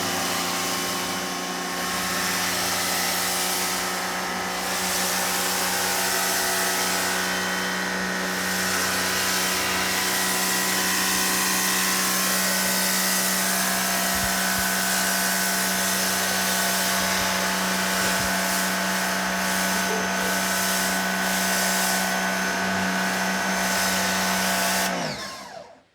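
GreenField 1800 W pressure washer's electric motor running with a steady hum and whine, then switched off near the end and winding down in pitch.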